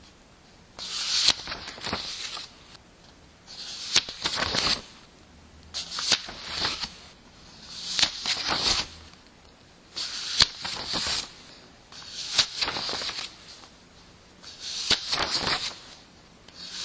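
Paper pages of a book turned one at a time, a crisp rustle with a sharp snap of the page for each turn, about every two seconds, seven turns in all.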